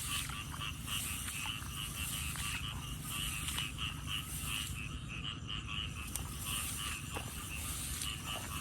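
Frogs calling at night: a rapid, even train of short calls, about four to five a second, with a steady low rumble underneath.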